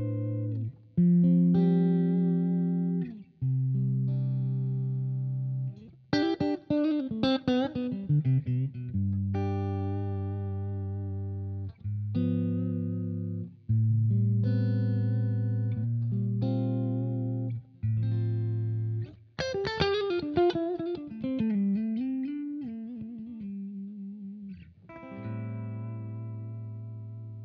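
Stratocaster-style electric guitar played through a J. Rockett Revolver vibe/boost pedal: chords left to ring a second or two each, broken twice by quick runs of single notes, about six seconds in and again about twenty seconds in.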